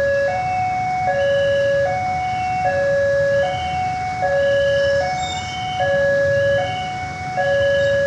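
Railway level-crossing warning alarm sounding its two-tone signal, a lower and a higher tone alternating, each held just under a second, warning that a train is approaching and the crossing is closed. A low rumble of idling motorcycles and traffic runs beneath it.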